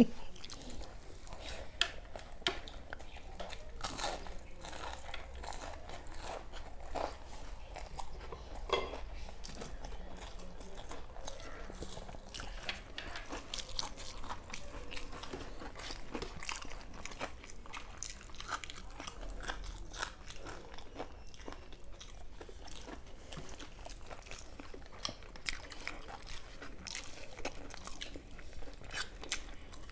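Close-up chewing and biting of crisp fried fritters with rice: a run of irregular small crunches and wet mouth clicks.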